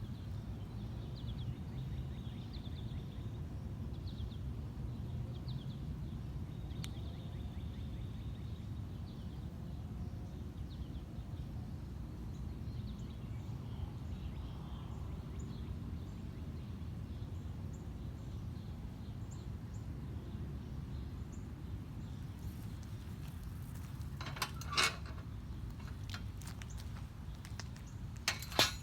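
Outdoor ambience: a steady low rumble with faint birds chirping through the first half, and two short, loud, noisy bursts near the end.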